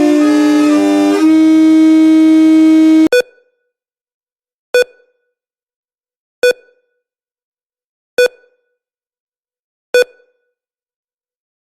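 Synthesized EAS-style alarm tones: a loud run of held electronic notes that changes pitch several times and cuts off abruptly about three seconds in. Then five short, ringing beeps, evenly spaced about every second and a half to two seconds, with silence between.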